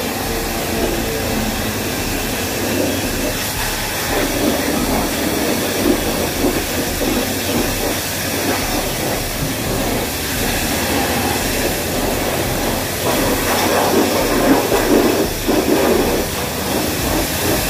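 Self-service high-pressure washer lance spraying a jet of water onto a motor scooter: a continuous hiss of spray and spattering water, a little louder and more uneven in the last few seconds.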